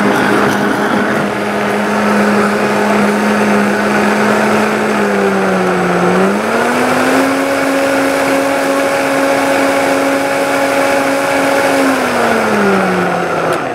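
G21 Perfect Smoothie Vitality blender running, blending a green smoothie, with a steady motor hum. About six seconds in the hum dips briefly, then steps up to a higher pitch and holds. Near the end it winds down and stops as the blender is switched off.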